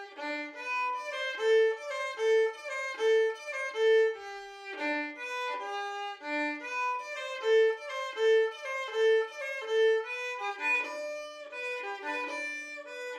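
Background music: a solo violin playing a melody note by note.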